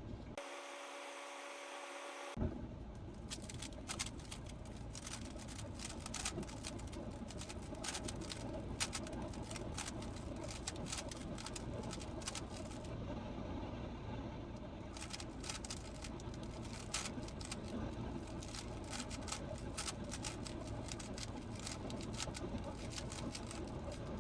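GAN 15 speedcube being turned by hand: a dense, irregular run of quick plastic clicks and clacks over a low steady hum. The first two seconds hold only a few faint steady tones before the clicking starts.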